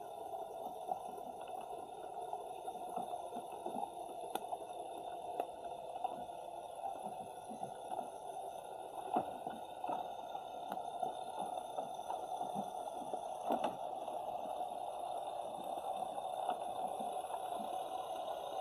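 Underwater ambience picked up by an Insta360 X3 camera's built-in microphone on the sea floor: a steady muffled noise with scattered irregular clicks and pops, the sharpest about nine and thirteen seconds in.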